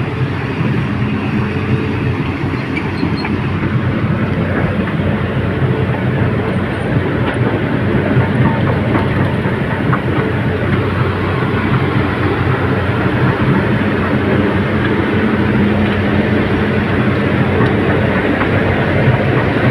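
Tracked excavator travelling: steady diesel engine hum under a continuous rattling clatter from its tracks.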